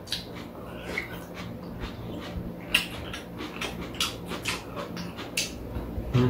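Two people eating cold bean sprout and cucumber soup: metal spoons clinking and scraping against bowls, with slurping. It comes as an uneven run of short, sharp sounds, a few of them louder.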